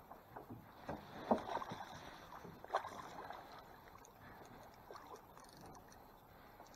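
Water splashing and slapping beside a small rowboat as a hooked trout is played close under the boat, with a few sharp splashes in the first three seconds, the loudest just over a second in, then only faint water sounds.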